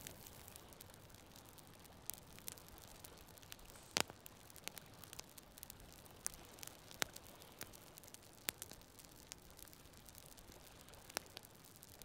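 Wood campfire of split kindling crackling: irregular sharp pops and snaps, the loudest about four seconds in, over a faint steady hiss.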